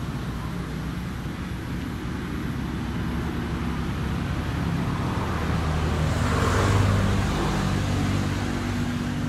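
A motor vehicle engine running with a steady low hum. It grows louder to a peak about seven seconds in.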